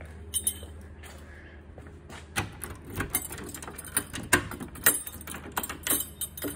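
Irregular clicks and knocks of keys and a room door being handled, starting about two seconds in, over a low steady hum.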